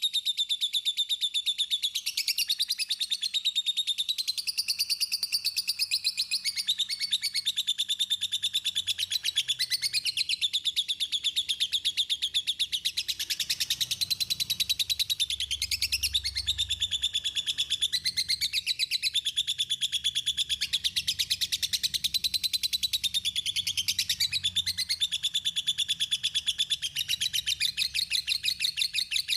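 A small songbird singing a fast, unbroken string of high chirps and trills.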